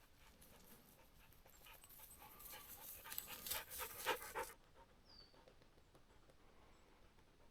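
Laika dog panting close to the microphone, quick rhythmic breaths growing louder, then cutting off suddenly about halfway through.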